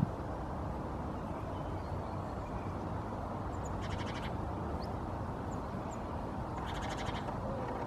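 Steady low outdoor background rumble, with two short rapid trills from a bird, about four seconds in and again near the end, and a few faint high chirps.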